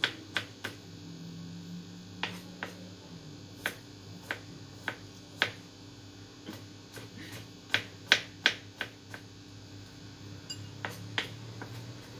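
Sharp, irregular clicks and taps, a little under two a second on average and bunched closest together about eight seconds in, over a low steady hum.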